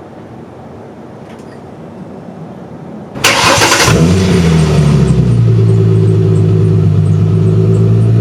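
A car engine starts with a sudden loud burst about three seconds in, then runs steadily, its revs easing down at first and settling into an idle.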